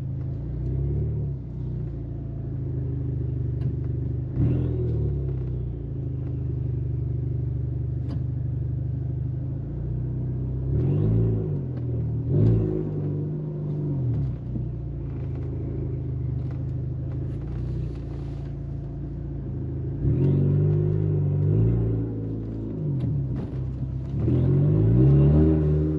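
Turbocharged Ford Fusion engine with an aftermarket downpipe running under way. It gives a steady low growl, and its pitch climbs and drops back several times, most strongly about eleven seconds in, twenty seconds in and near the end, as the throttle is pressed and eased.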